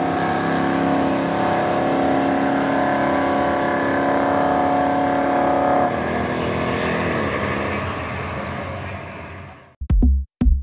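Drag car's engine at full throttle running down the strip, a steady loud drone that drops in pitch and level about six seconds in, when the car finishes its run, then fades away. Electronic music with a drum beat comes in near the end.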